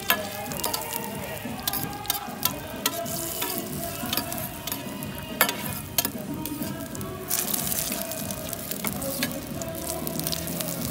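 A kebab cheese paratha frying in oil on a large flat griddle, sizzling steadily. Sharp metallic clinks come at irregular moments as a metal spatula and tongs strike and scrape the griddle.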